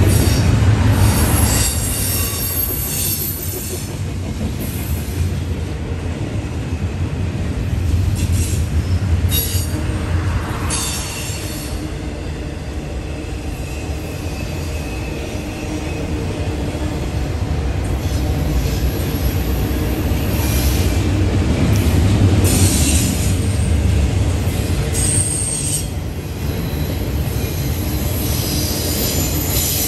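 Norfolk Southern double-stack intermodal freight train rolling past: a steady low rumble of wheels on rail, with high wheel squeal coming and going several times.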